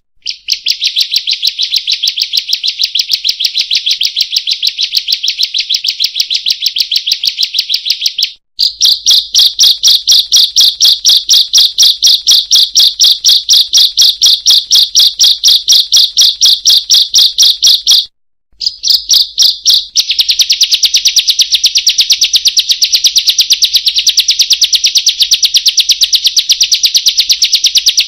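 Ciblek, a small songbird, calling a fast, unbroken run of high, even 'kriek' notes, several a second. The run breaks off briefly twice, about a third and two thirds of the way through, and picks up again at the same pace.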